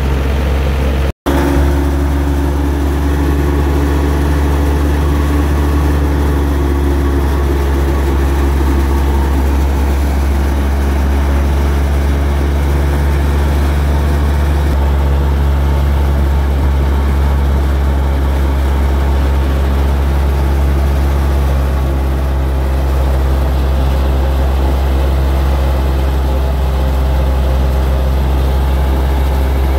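Wheat threshing machine running steadily under power, a constant deep engine-like drone with a steady hum and several held tones. The sound cuts out for an instant about a second in.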